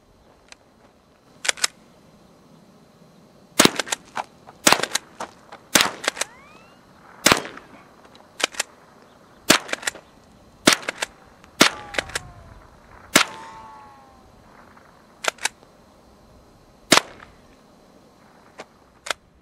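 Remington Model 12 .22 rimfire pump-action rifle firing about a dozen sharp shots at an irregular pace, roughly one every second or two, with the click-clack of the pump action being worked between shots. A brief whine follows a couple of the shots.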